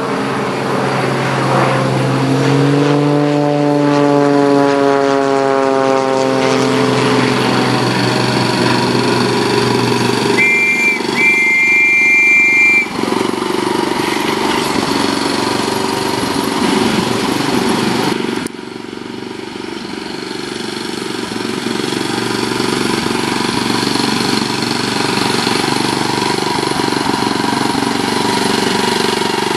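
Diesel-outline 7¼-inch gauge miniature railway locomotive running, its engine note rising steadily as it pulls away. About ten seconds in the horn gives a short toot and then a longer one. The engine then runs on steadily; its sound drops suddenly about eighteen seconds in and builds up again.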